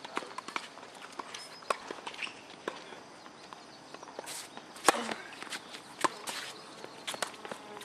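Tennis racket striking the ball on a serve: a sharp pop about five seconds in, with a second, fainter hit about a second later. Footsteps and lighter taps on the hard court come before it.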